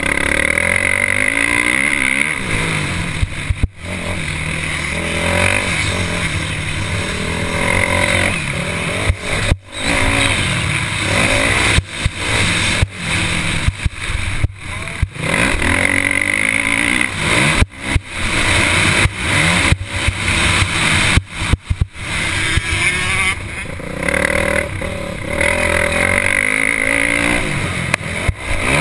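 Motocross bike's engine, recorded from on the bike, revving up and falling back again and again while racing around a dirt track. The sound drops sharply for an instant many times, mostly in the middle stretch.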